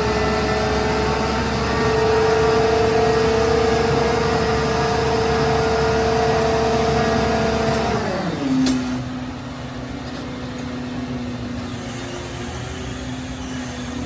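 Heavy machine engine running steadily at raised speed, then dropping to a lower, slower speed about eight seconds in, with a sharp click just after the drop.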